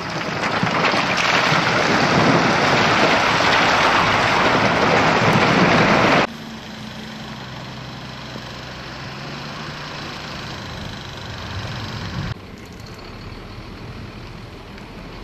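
Outdoor background noise: a steady rushing hiss that stops abruptly about six seconds in, giving way to a quieter background with a faint low hum, which drops again near the end.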